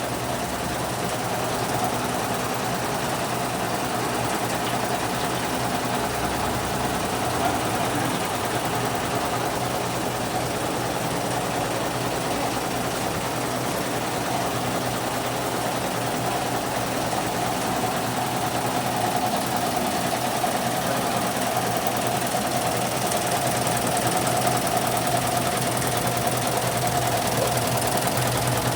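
Single-head computerized embroidery machine running, stitching steadily without a break.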